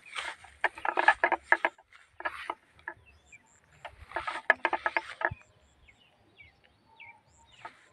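Footsteps and rustling through grass in three short bursts of crackling, with faint insect and bird chirps between them.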